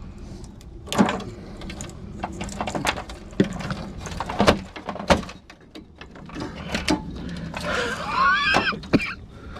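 Scattered knocks and clicks from scrap appliance parts being handled and taken apart, with a brief wavering high-pitched squeak near the end.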